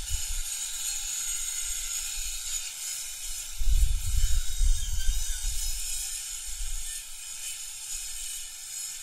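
DeWALT Atomic 20V 4-1/2-inch cordless circular saw with a carbide-toothed blade cutting through an MDF board, heard as a hissing noise that eases off about seven seconds in as the cut finishes.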